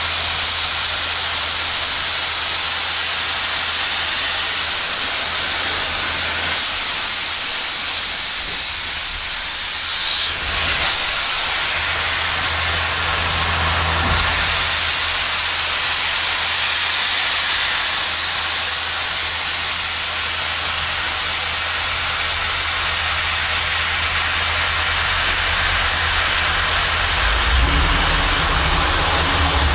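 Steady hiss of escaping steam from a Baldwin 2-8-2 steam locomotive, with a low rumble underneath and no clear exhaust beat; the hiss dips briefly about ten seconds in.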